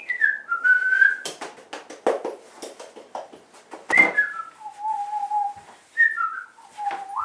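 Someone whistling a slow tune in a few held and falling notes, over a run of clattering knocks from kitchen things being handled, the loudest knock about four seconds in.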